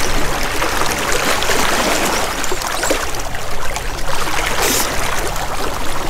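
River water running steadily, an even rushing sound.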